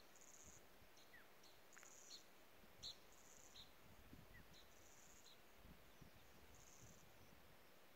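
Faint outdoor ambience of insect calls: short, high, buzzy trills repeating about every one and a half seconds, with scattered brief high bird chirps between them.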